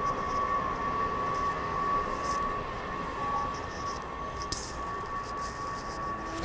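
Washington Metro train running along the station platform and pulling away, a steady rumble with a constant high-pitched whine, easing slightly in the second half.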